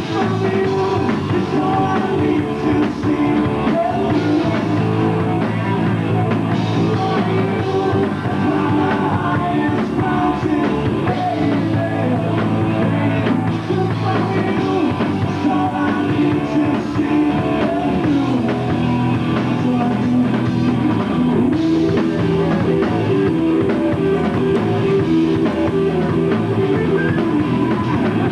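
Live rock band playing a song: electric guitars, bass guitar and drum kit, with a lead vocal at times.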